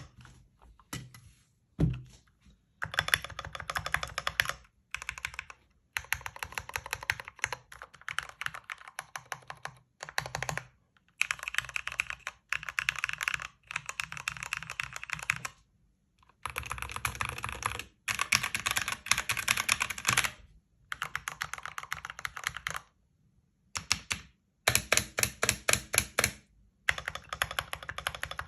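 Typing on a custom mechanical keyboard: rapid runs of key clicks a few seconds long, broken by short pauses about every two to four seconds.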